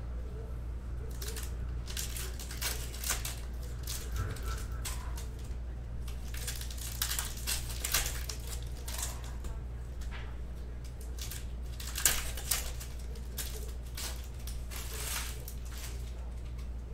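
Foil trading-card pack wrappers being torn open and crinkled by hand: a run of irregular crackling rips, the sharpest about 8 and 12 seconds in, over a steady low hum.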